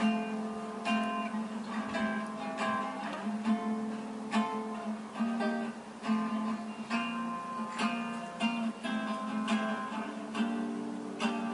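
Background music: an acoustic guitar playing a steady run of plucked and strummed notes.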